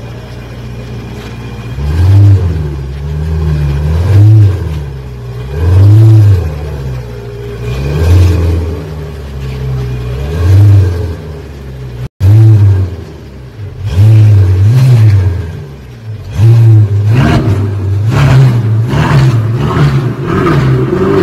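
Ferrari sports car engine being revved over and over, the pitch rising and falling back in throttle blips about every two seconds, with a brief break about halfway through.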